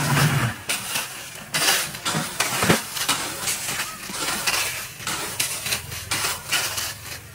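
Steel shovels repeatedly scraping and digging into a pile of crushed stone gravel, each stroke a crunch and rattle of stones against the blade.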